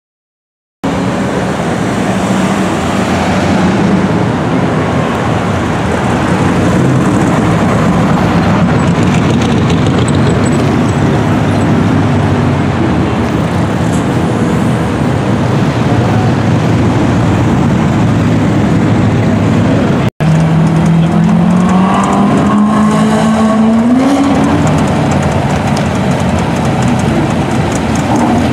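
Street traffic with car engines running as cars creep along slowly. About two-thirds of the way through, after a brief cut, one engine revs up, its pitch rising over about three seconds.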